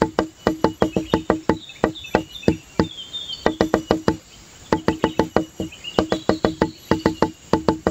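Rapid series of short, sharp knocks, about four or five a second, each with a brief low ring and a short pause about halfway through, over faint high-pitched chirping.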